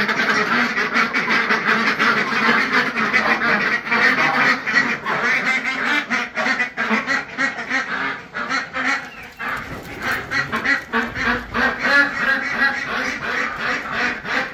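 A flock of domestic ducks, Pekins and Khaki Campbells among them, quacking continuously over one another, easing off briefly about two-thirds of the way through.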